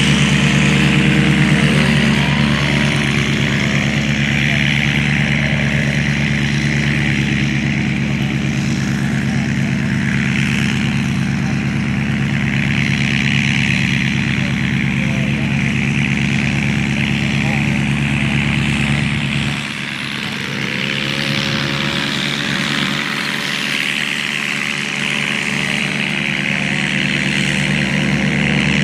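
Valach VM120B2 twin-cylinder four-stroke model aircraft engine driving a Fiala 30×12 propeller on a 40% scale Fokker Eindecker, running steadily in flight. About two-thirds of the way through, the engine sound dips and quiets for a moment, then climbs back up in pitch.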